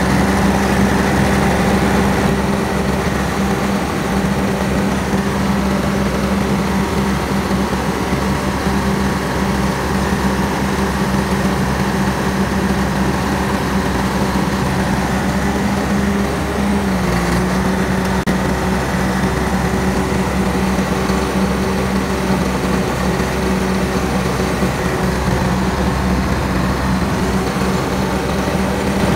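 Caterpillar D6 bulldozer's Cat 3306 six-cylinder diesel engine running steadily, its pitch dipping briefly about two-thirds of the way through before settling back.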